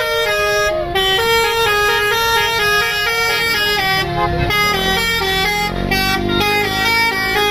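Indonesian bus 'basuri' musical air horn playing a melody of short stepped notes, the 'telolet' tune. From about five seconds in, a lower tone slides upward beneath the melody.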